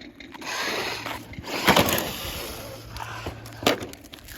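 Remote-control cars driving, with a faint steady motor hum through the middle and a couple of sharp knocks from bumps and collisions.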